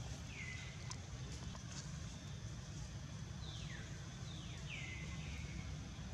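Shrill animal calls that drop in pitch and then hold briefly: one near the start and three overlapping ones about three and a half to five seconds in, over a steady low rumble.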